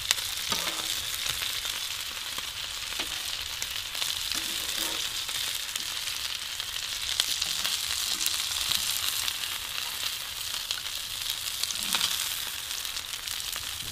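Lamb chops and green beans sizzling on a gas barbecue's flat hotplate: a steady frying hiss, with a few light clicks and scrapes of metal tongs.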